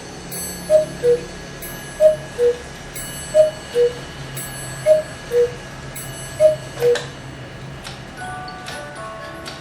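Chalet-style 8-day cuckoo clock striking: five two-note cuckoo calls, high then low, about every second and a half, each with a ringing strike. About a second after the last call, its music box starts a tune over the ticking of the movement.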